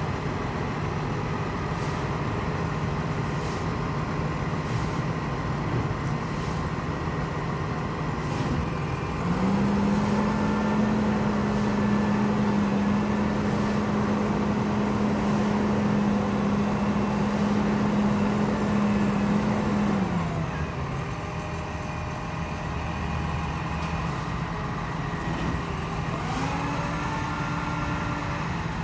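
Utility bucket truck's diesel engine running steadily. About nine seconds in, its speed steps up and holds for about ten seconds, then drops back to idle, which is typical of the truck powering its boom hydraulics. Near the end there is a short rising whine.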